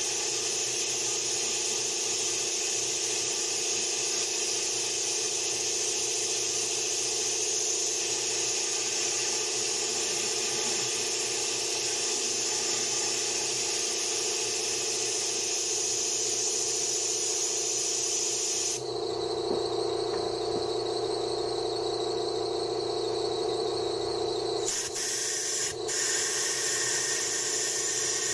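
Compressed air blown into the engine's coolant hose, a steady hiss with a held whistle, forcing the coolant out of the open thermostat housing. The hiss changes in tone about two-thirds of the way through, and the whistle drops out near the end.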